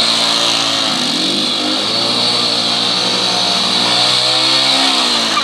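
Small underbone motorcycle engine held at high revs while its rear wheel spins in the mud, the pitch wavering slightly up and down.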